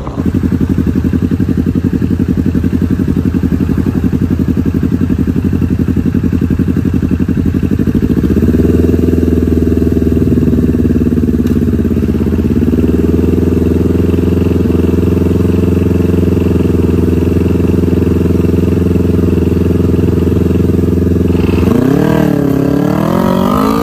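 Custom Kawasaki Ninja 250 cafe racer's parallel-twin engine idling with a steady exhaust note, the pitch rising a little about eight seconds in, then revved in a few quick throttle blips near the end.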